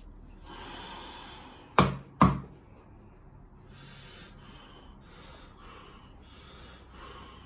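Two sharp knocks, about half a second apart, of a rubber mallet striking a wooden peg held against a lying person's body. Deep breaths are drawn in between.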